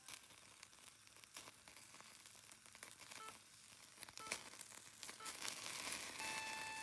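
Meat sizzling on the wire grill over a charcoal fire, with scattered crackles and pops, growing louder about five and a half seconds in as dripping fat flares up in the coals.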